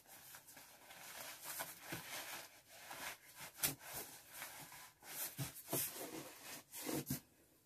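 Soft, irregular rustling, creaking and knocking of a cardboard balikbayan box and the packed clothes inside as they are pressed down by hand and knee, compacting contents that are still sinking.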